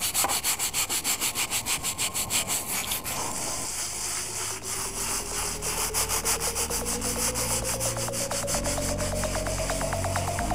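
Stiff-bristled hand scrub brush scrubbing a wet brick in quick, rhythmic back-and-forth strokes. About four seconds in, music comes in with low held bass notes and a slowly rising tone.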